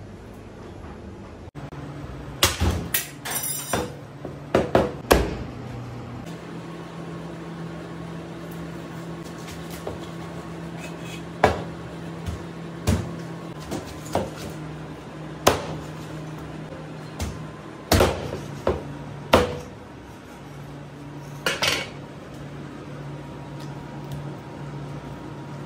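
Heavy cleaver chopping through a large whole fish into steaks, each blow a sharp knock against the cutting board. A quick run of strikes comes in the first few seconds, then single chops spaced a second or more apart. A steady low hum runs underneath.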